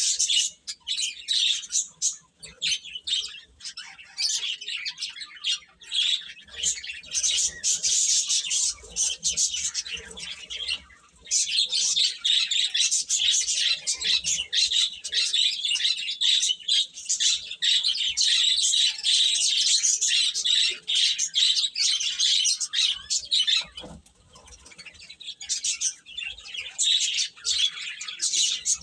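A group of baby chicks peeping, many quick high chirps overlapping almost without pause. The chirping dies down briefly twice: about a third of the way in and again a few seconds before the end.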